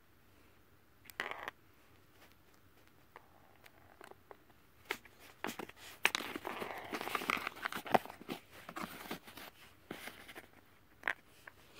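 Small clicks, taps and rustling from handling a cardboard tabletop mini-golf board, its small metal ball and plastic putter. There is a light tap about a second in, and the handling is busiest from about five seconds in until near the end.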